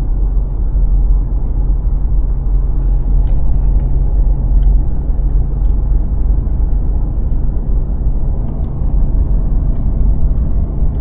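Steady low rumble of a vehicle on the move, with a few faint light clicks over it.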